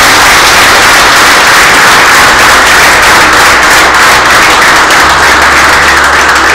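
A roomful of football players applauding, loud and steady.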